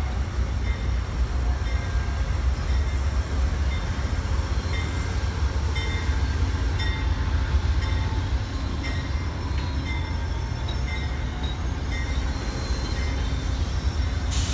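Amtrak passenger train rolling past with a steady heavy low rumble, with faint short high squeals from the wheels coming and going.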